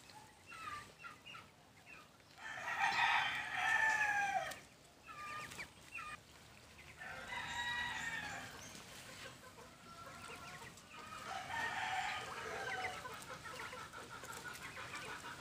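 Rooster crowing, three long crows about two seconds each, with short clucks between them.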